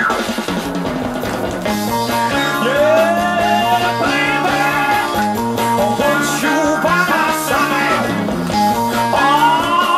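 Early-1970s prog rock playing from a vinyl LP: held chords and a bass line, with a sliding lead melody rising and falling over them.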